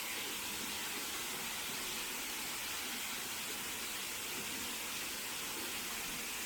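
Small stream rushing steadily, a constant even hiss of running water.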